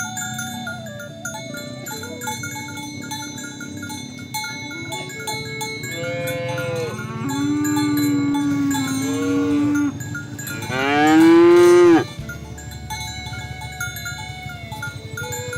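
Oxen mooing: a few short calls, then a long low moo, then the loudest, a long moo that rises and falls in pitch, ending about twelve seconds in. Bell-like ringing tones sound throughout.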